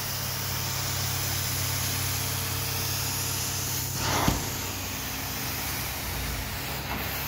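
Carpet-cleaning hot-water extraction wand working a greasy carpet: a steady rushing hiss of spray and vacuum suction over a low machine hum. About four seconds in there is a brief downward whoosh that ends in a thump.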